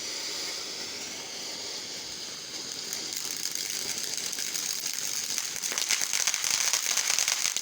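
Firework hissing, growing louder about three seconds in and breaking into rapid crackling for the last couple of seconds.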